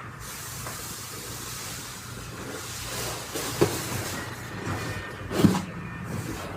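Slime being worked by hand: a steady sticky hiss, with two louder pops about three and a half and five and a half seconds in.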